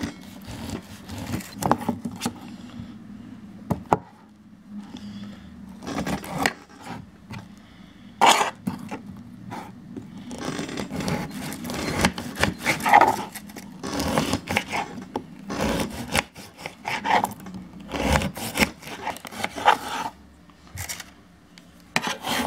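Serrated knife sawing and scraping through a partly frozen orange and knocking on the cutting board in irregular strokes, over a low steady hum.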